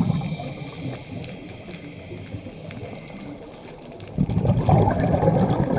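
Heard underwater, a diver's exhaled breath bursting out as a loud stream of bubbles about four seconds in, after a quieter stretch of low rumble.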